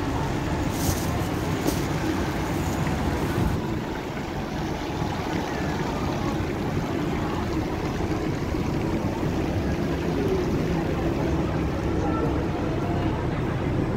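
Steady city background noise: a low traffic rumble with faint distant voices.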